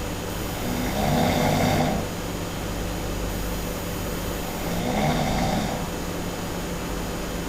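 A sleeping person snoring loudly: two snores about four seconds apart, each lasting about a second.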